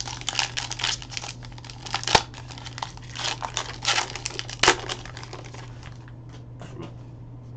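Crinkly wrapper of a Donruss Optic basketball card pack being torn open and crumpled by hand, with two sharp crackles. The rustling thins out to a few soft ticks after about five seconds as the cards come out.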